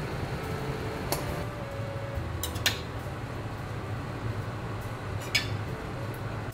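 Metal spatula stirring tomato and scrambled egg in a stainless steel frying pan, with a few sharp metal-on-pan clinks over a steady low rumble.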